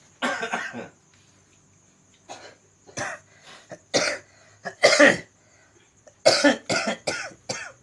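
A person coughing in harsh, repeated bursts: a single cough near the start, separate coughs every second or so, then a quick run of coughs near the end.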